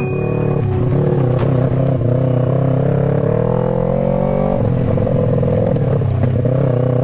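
Sport motorcycle's engine running at low speed on a rough dirt trail. About three seconds in, the revs climb for just over a second, then drop back to the steady note.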